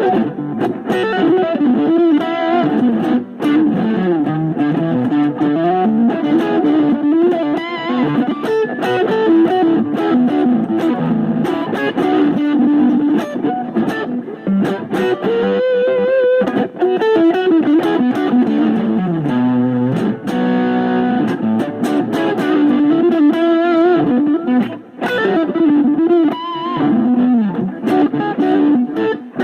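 Guitar played through effects and distortion: a continuous melodic line that bends up and down, with wavering held notes about halfway through.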